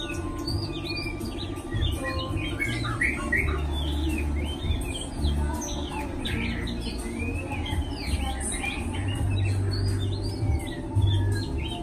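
Several caged songbirds chirping and calling over one another in many short, quick rising and falling notes. A steady low hum runs underneath.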